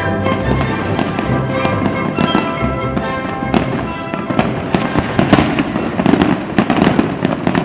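Festive orchestral music with firecrackers and fireworks crackling and banging over it. The pops grow denser and louder in the second half as the music fades under them.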